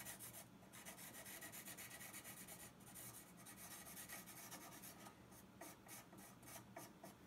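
Faint scratching of a permanent marker rubbed in quick back-and-forth strokes along the edge of a steel EGO Power+ mower blade, blacking out the edge as a guide for even pressure when sharpening.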